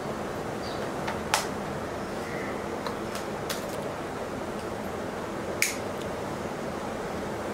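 Steady background noise with several short, sharp clicks, two of them louder, about a second and a half in and again between five and six seconds in.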